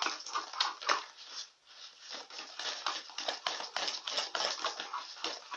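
Glue-heavy slime being stirred in a plastic pot: a quick, irregular run of sticky clicks and taps. The slime is still tacky and clinging to the pot, short of activator.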